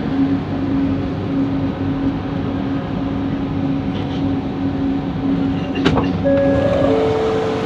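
Bombardier Innovia ART 200 train running on its linear induction motors with a steady motor whine over rail rumble, slowing as it draws into a station. A sharp click comes near six seconds in, then the motor tone steps down in pitch as the train brakes toward a stop.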